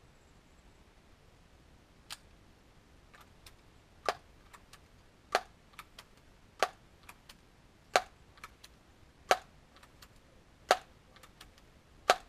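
Daisy PowerLine 901 multi-pump air rifle being pumped: a sharp clack about every second and a half as the pump forend is worked, with lighter clicks between, starting about four seconds in after a single click near two seconds.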